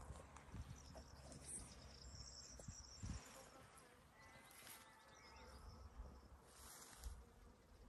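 Near-quiet meadow ambience: faint high-pitched chirping and buzzing of insects over a low rumble.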